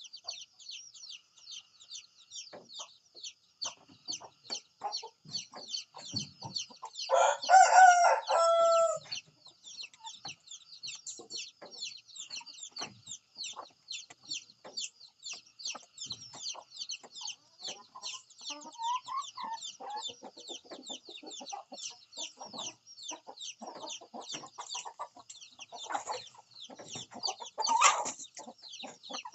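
A rooster crows once, loud and drawn out for about two seconds, a quarter of the way in, with shorter fowl calls later and another loud call near the end. Under it runs a constant rapid, high chirping.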